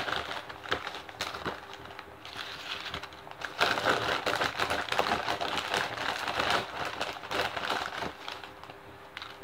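Crinkling of a plastic Doritos chip bag with a patter of tortilla chips tumbling out onto a plate, busiest in the middle stretch.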